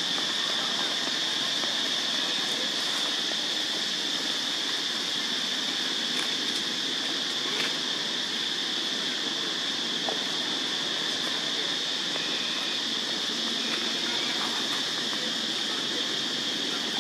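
Steady outdoor forest ambience dominated by a continuous high-pitched insect drone, with a few faint rustles in dry leaves.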